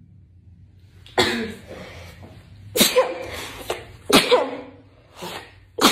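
A person sneezing repeatedly after a COVID-19 nasal swab test: four loud sneezes in quick succession, about a second and a half apart, with a smaller one between the last two.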